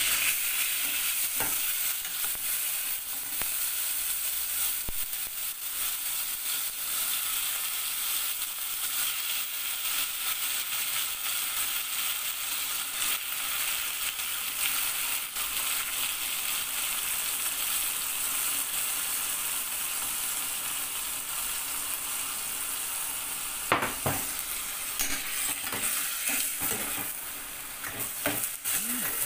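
Boneless chicken pieces sizzling as they fry in hot oil in a pot, a steady hiss. Near the end, a metal spoon knocks and scrapes against the pot as the pieces are stirred.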